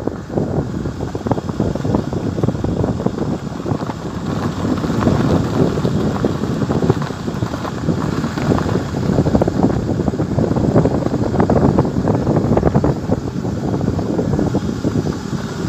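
Wind buffeting the microphone over the rumble of a vehicle driving along a dirt road: a loud, steady rush with uneven gusts.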